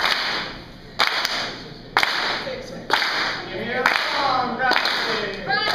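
A group clapping together in time, about one clap a second, each clap trailing off in the hall's echo. A crowd of voices joins in over the last couple of seconds.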